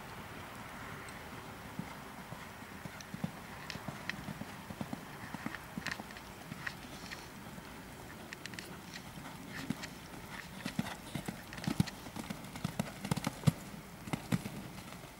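Hoofbeats of a Holsteiner mare cantering on a sand-and-gravel arena footing: dull, irregular thuds that become louder and more frequent in the second half.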